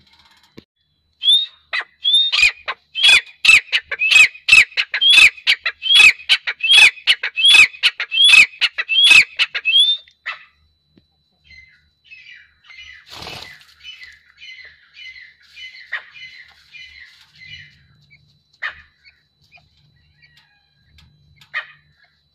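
Grey francolin calling: a loud, fast series of repeated notes, each a sharp click with a ringing note, about two a second for some eight seconds. After a short pause comes a fainter series of similar calls, with a brief flutter of wings a little past halfway.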